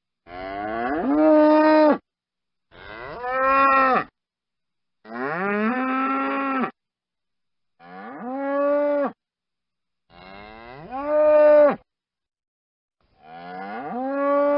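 A bull mooing six times, one call every two to three seconds, each call about a second and a half long. Each moo rises in pitch at the start, then holds steady before cutting off, with silence between the calls.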